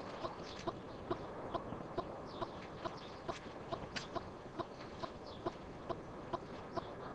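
Outdoor ambience: a short animal call repeated evenly about twice a second, with scattered high bird chirps.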